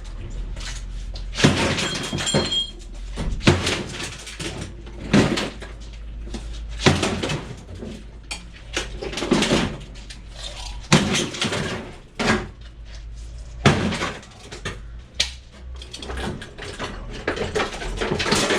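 Irregular knocks, bangs and clanks of scrap metal being handled and broken down, roughly one a second.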